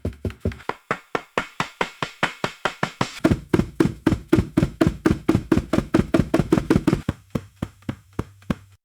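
Footsteps running on a wooden floor: rapid, evenly spaced knocking footfalls that thin out and stop near the end.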